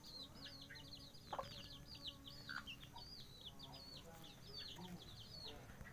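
Young kampung chicks peeping: a continuous stream of short, high, downward-sliding peeps, several a second, faint, with an occasional lower, shorter call among them.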